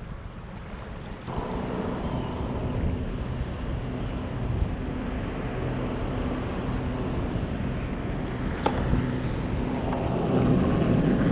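Marine One helicopter approaching: a low rotor-and-engine drone that comes in about a second in and grows steadily louder.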